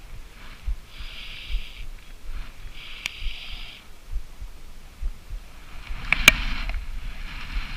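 Fly line being stripped in by hand through the rod guides, hissing with each long pull, twice in the first few seconds, while a hooked fish is brought in; a sharp knock a little over six seconds in.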